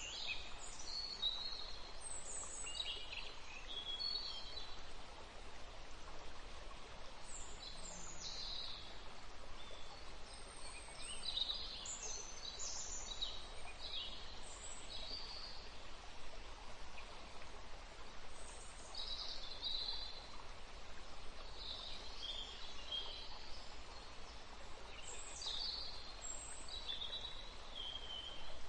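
Small birds chirping faintly in the background: short, high calls every second or so, some sliding up and some sliding down, over a low steady hum.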